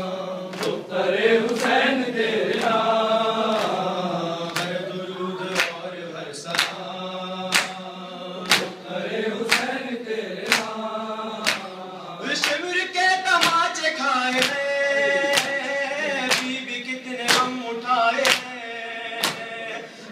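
Men chanting a noha in unison, with rhythmic open-hand chest-beating (matam) strikes about once a second. About twelve seconds in, the chant moves to a new, higher line and the strikes come more densely.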